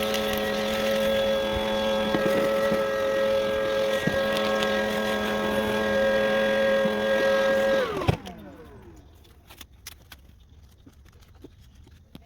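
Electric motor running at a steady speed with a whine, then switched off about 8 seconds in, its pitch falling as it spins down; faint clicks and handling sounds follow.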